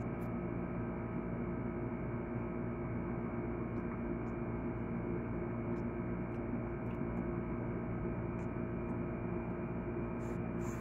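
A steady mechanical or electrical hum made of many constant tones, unchanging throughout, with a few faint, sharp clicks over it.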